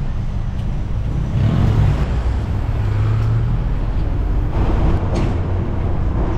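Songthaew (pickup-truck shared taxi) engine running with road traffic noise, a steady low drone whose pitch shifts slightly now and then.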